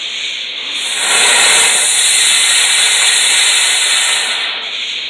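A firework hissing as it sprays sparks. The hiss swells loud about a second in, holds steady, and dies back near the end over a fainter constant hiss.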